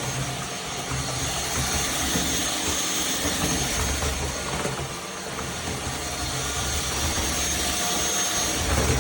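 Iirios cordless stick vacuum running steadily: a rush of air with a high, constant motor whine, while the deeper part of the sound swells and fades.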